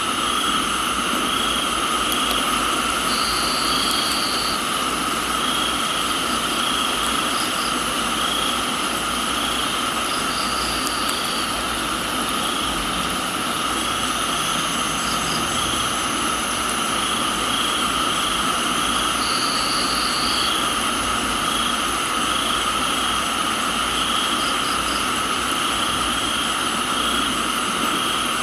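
Steady rain hiss under a chorus of crickets trilling at several steady high pitches. One call pulses about once a second, and a higher buzzing call returns every eight or nine seconds, lasting a second or two each time.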